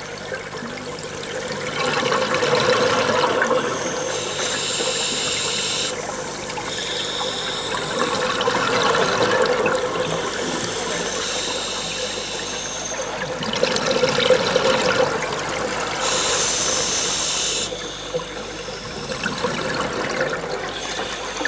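Scuba diver breathing underwater through a regulator: bursts of exhaled bubbles rush up every five or six seconds, with a higher hiss of inhalation between them.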